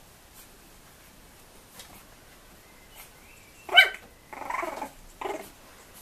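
Bulldog puppies yapping. There is a sharp, high yelp about two-thirds of the way in, then a longer, rougher bark and a short third bark near the end.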